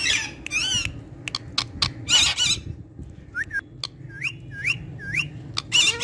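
Indian ringneck parakeet calling: harsh squawks near the start, again about two seconds in and at the end, with a run of short rising whistled notes in between.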